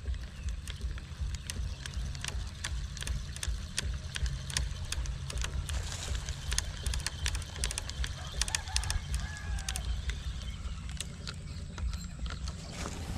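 Spinning reel being cranked to retrieve line, with irregular sharp clicking, over a steady low rumble of wind on the microphone.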